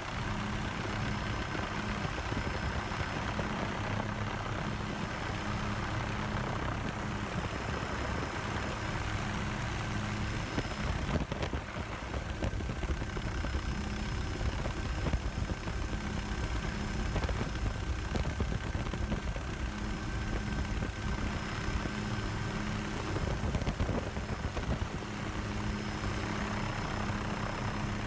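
Steady engine and rotor noise of a helicopter heard from on board: a constant low hum with a thin steady whine over it.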